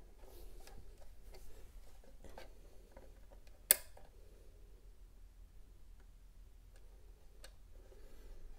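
Light plastic clicks and taps from a UniFi in-wall access point's plastic housing being handled and fitted against its wall mounting plate, with one sharp, much louder click a little before halfway through.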